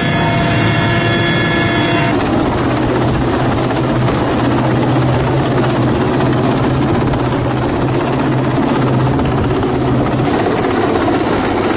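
Helicopter noise throughout. For about the first two seconds it is heard from inside the cabin, a steady turbine whine of several tones over engine noise. It then changes suddenly to a helicopter hovering close overhead, heard from outside: a loud, steady rush of rotor and engine noise with a low hum.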